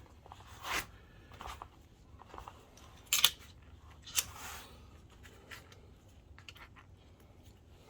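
Small handling sounds on a projector's plastic parts: three short scrapes, the middle one loudest, with a few light clicks between them.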